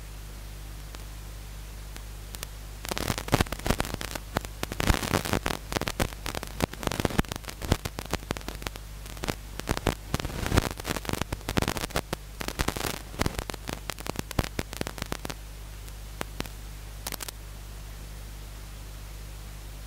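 Steady low hum with a long run of loud, dense crackling static through the middle, and one short crackle shortly after it.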